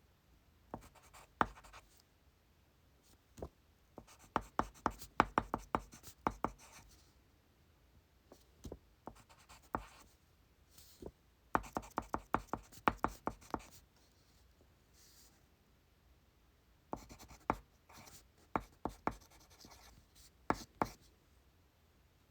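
Pencil writing on paper on a desk, heard as bursts of quick tapping strokes. There are five spells of writing, each one to three seconds long, with short pauses between them.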